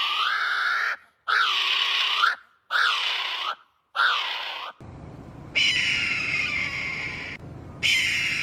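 A bird giving loud, harsh calls about a second long: four in a row in the first half, each sweeping upward in pitch. After a change of background with a steady hiss, two longer calls follow, falling gently in pitch.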